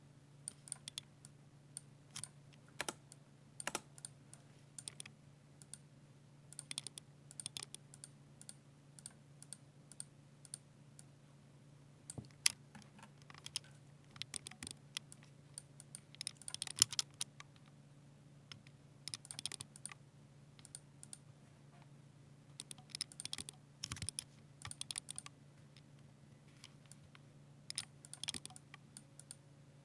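Typing on a Ducky 60% mechanical keyboard with silver linear switches: keystrokes come in quick runs with short pauses between them. A faint steady low hum sits underneath.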